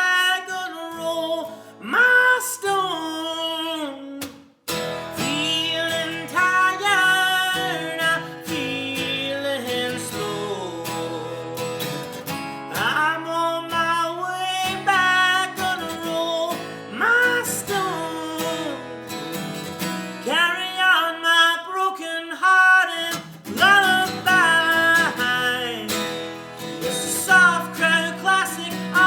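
Folk band playing live: strummed acoustic guitar with singing. The music breaks off almost to silence about four and a half seconds in, then starts again.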